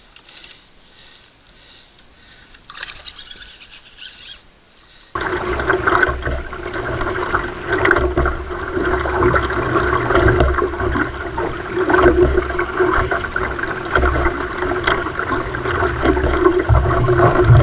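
A few seconds of faint water sounds, then, about five seconds in, a sudden switch to loud, steady rushing water and wind noise on a camera mounted on a paddled sea kayak.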